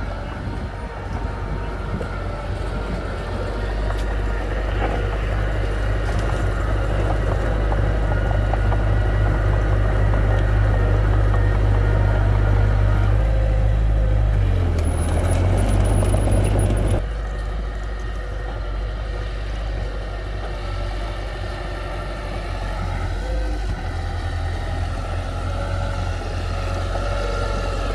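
Diesel engine of heavy earthmoving machinery running steadily with a deep hum. It gets louder through the middle and drops back suddenly about two-thirds of the way through.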